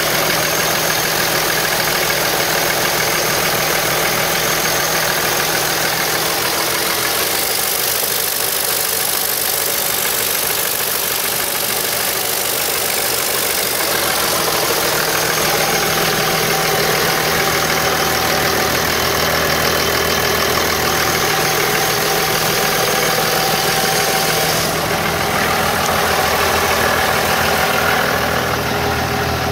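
Dodge Ram pickup's engine idling steadily. Its sound shifts abruptly a few times.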